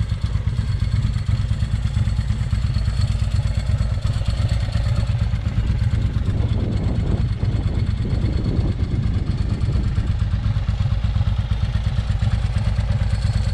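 Motorcycle engine idling, a steady low rumble with rapid even pulsing, which stops abruptly near the end.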